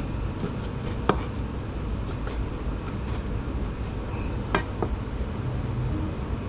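Kitchen knife slicing raw chicken thigh on a plastic cutting board. The blade taps the board sharply about a second in and twice more close together near the middle, over a steady low background hum.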